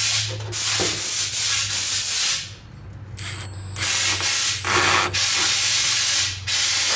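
Cordless brushless drill running in several short bursts as a small bit cuts into the brass plug over a carburetor's fuel mixture screw. The bit is taken slowly so it does not mar the screw beneath.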